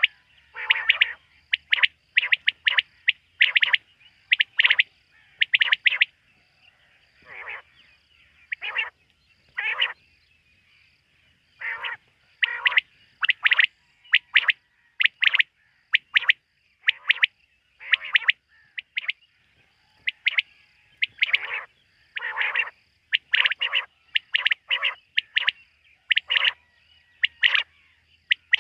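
Quail calling at night: short, sharp call notes in quick groups of two or three, repeated over and over with brief pauses. A faint, even high ticking runs underneath at about two per second.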